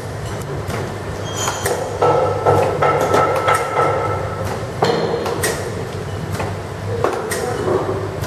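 Drip bag coffee packaging machine running: a steady low hum with repeated clicks and clacks of its mechanism as it cycles, and a whine in the middle.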